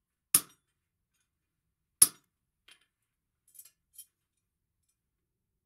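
Two sharp hammer blows on a handled blacksmith's chisel set on a red-hot steel bar on the anvil, about a second and a half apart, each with a short metallic ring, then a few light clinks of the tools.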